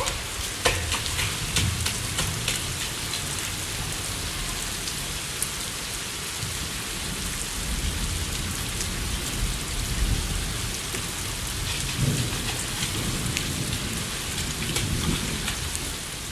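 Steady rain falling, a dense even hiss, with low rumbling underneath.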